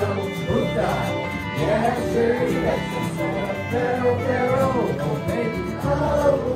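Country-style background music with a fiddle melody over guitar accompaniment.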